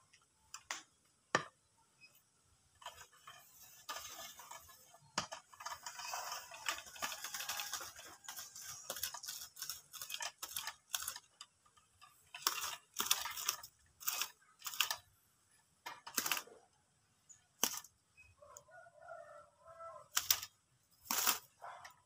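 Scattered sharp knocks, clicks and rustling as a long metal trapping pole is handled and lowered with a leafy perch, with a hissy rustle for several seconds early on. Near the end a caught zebra dove flaps its wings on the perch.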